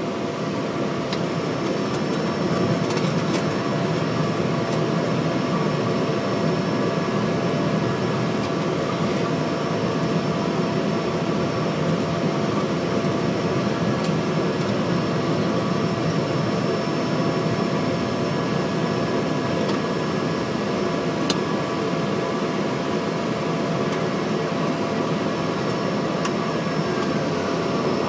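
Cessna 208B Grand Caravan's Pratt & Whitney PT6A turboprop and propeller running at low taxi power, heard from inside the cockpit: a steady engine noise with a constant whine.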